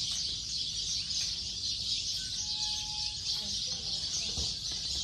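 Steady high-pitched chorus of insects, continuous and even.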